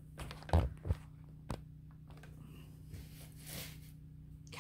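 A few light knocks and handling noises as objects are moved about on a table, over a faint steady low hum.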